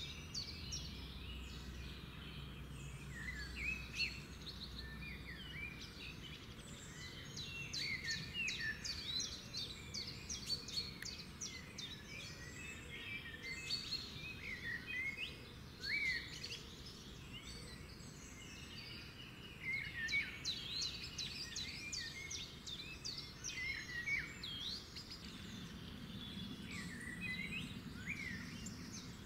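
A dense chorus of small birds chirping and twittering, many short rapid calls overlapping without a break.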